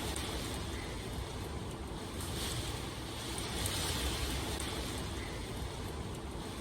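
Steady rain, an even hiss that swells and eases every few seconds, with faint scattered drop ticks.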